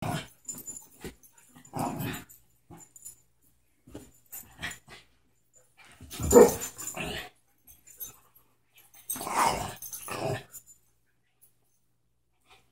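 Dogs growling during a play-fight, in short separate bursts, the loudest about six seconds in and another strong bout about nine seconds in.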